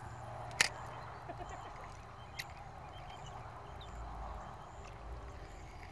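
Faint outdoor background hiss, with one sharp click about half a second in and a fainter click a couple of seconds later.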